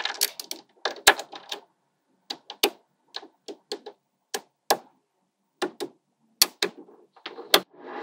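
Small magnetic balls clicking and snapping together as strips and blocks of them are pressed onto a panel. Sharp, irregular clicks come in a quick cluster in the first second and a half, then one at a time about every half second.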